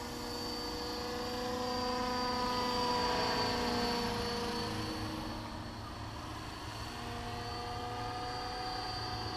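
Radio-controlled scale EC145 helicopter flying: a steady motor whine over the rotor's hum, growing a little louder about two to three seconds in and easing off around six seconds. Its main blades are out of track, which the flyers blame for the model's shaking.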